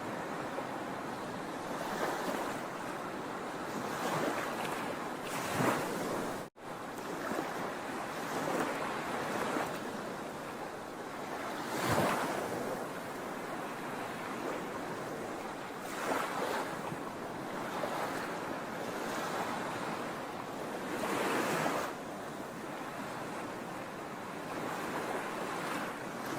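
Sea waves on a shore: a steady hiss of surf with waves breaking and washing in every few seconds, the strongest about halfway through. The sound drops out for an instant about a quarter of the way in.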